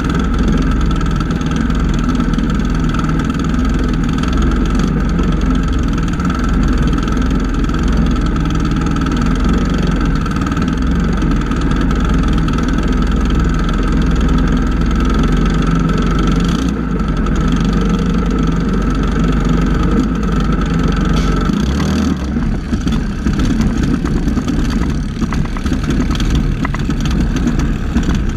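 Loncin small gasoline engine of an outrigger racing boat running loud and steady close to the microphone. About three-quarters of the way in, its steady tone breaks off and the sound turns rougher and more uneven as the boat gets under way.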